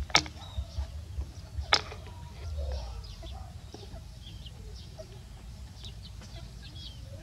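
A plastic bowl knocked and shifted about by a baby macaque: two sharp knocks about a second and a half apart, then softer rubbing and bumping, with faint bird chirps in the background.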